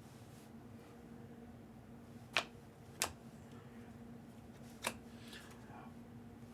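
Trading cards being handled: three sharp clicks, two close together a couple of seconds in and a third near five seconds, then a faint rustle, over a steady low hum.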